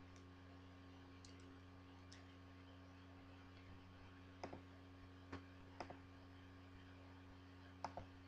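Near silence: a steady low hum with about six faint, short clicks scattered through.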